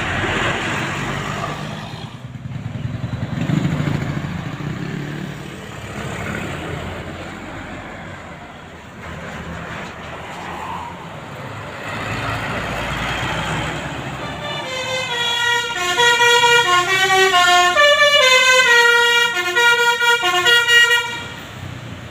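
A vehicle's engine and road noise, then about fifteen seconds in a bus's telolet basuri musical horn plays a quick multi-note melody, loud, for about six seconds before cutting off sharply.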